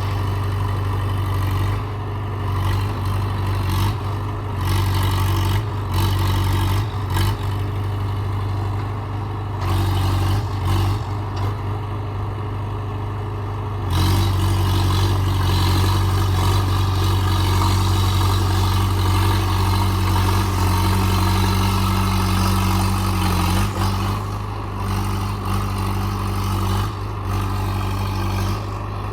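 JCB 3DX backhoe loader's four-cylinder diesel engine running under work, its note rising and falling every second or two. About halfway through it picks up and holds a louder, steadier pitch for about ten seconds, then eases off.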